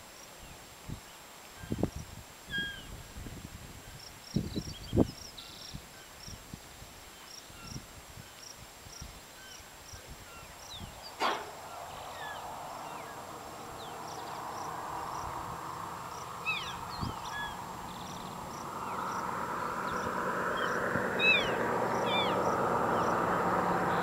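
Outdoor ambience with scattered short high chirps and a few low bumps, then from about halfway a distant engine noise that rises steadily and grows louder toward the end.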